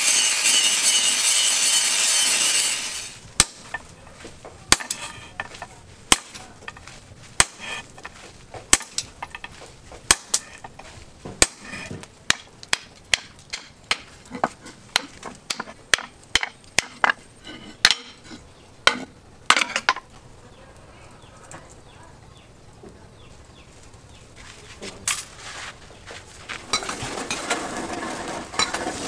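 Hand hammer striking red-hot steel on a small anvil, a run of sharp irregular blows that come faster about ten seconds in. It is bracketed by the steady rushing noise of the charcoal forge's air blower, which stops about three seconds in and starts again near the end.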